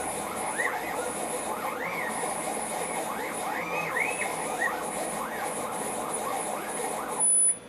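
Stepper motors of a DIY CNC router, run unmounted on the bench at 400 inches per minute, whining in many quick rising-and-falling pitch sweeps as they speed up and slow down through the program's moves. Near the end a brief, loud high whine sounds, then the motors stop.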